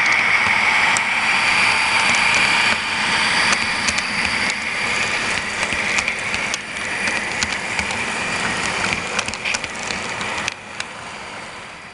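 HO scale model diesel locomotives running past close by: a steady whir of motors and gearing with scattered clicks of wheels on the track. It gets quieter near the end.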